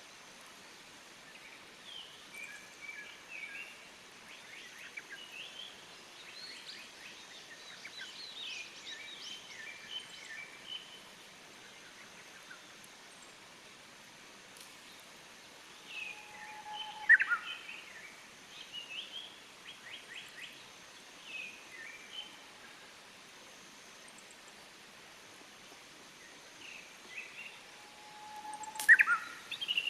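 Forest birdsong: a Japanese bush warbler (uguisu) sings twice, about halfway through and near the end, each time with a long held whistle that breaks into a quick rising flourish. Other small birds chirp and twitter in between.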